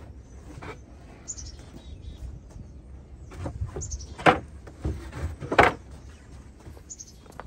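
A small bird repeats a short, high, falling chirp about every three seconds over a low outdoor rumble. A few sharp thumps come in the middle, the two loudest about four and five and a half seconds in.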